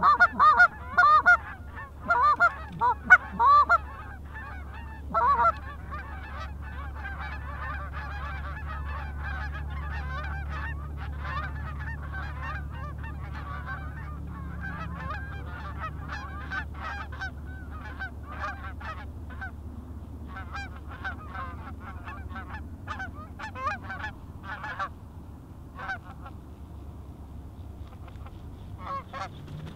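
A flock of Canada geese honking overhead as they circle in to land: several loud, close honks in the first few seconds, then a dense chorus of many overlapping honks that thins out near the end.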